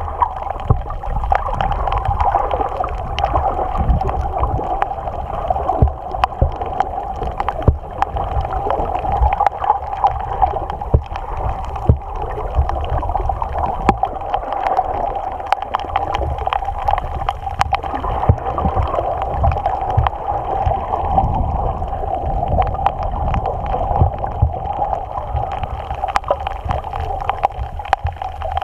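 Underwater sound picked up by a camera held below the surface over a coral reef: a muffled, steady wash of water noise with a constant hum and frequent sharp clicks throughout.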